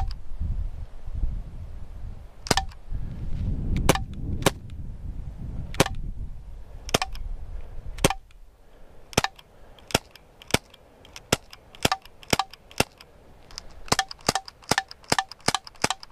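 BB air pistols fired one shot after another, each shot a sharp snap. The shots come about one a second at first and speed up to several a second in the last few seconds. A low rumble runs under the first few seconds.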